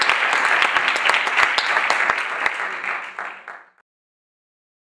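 Audience applauding, the clapping fading out and ending a little under four seconds in.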